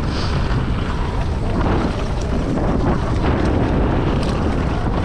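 Wind buffeting the microphone of a camera on a mountain bike rider moving fast downhill into a strong headwind, with tyre rumble and a few sharp rattles from the bike on the trail.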